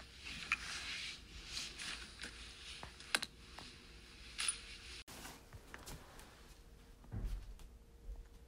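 Quiet rustling and scattered small clicks of handling noise, easing off after about five seconds, with a soft low thump about seven seconds in.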